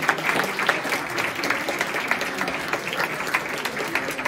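Audience applauding: many hands clapping at once, a dense unbroken run of claps.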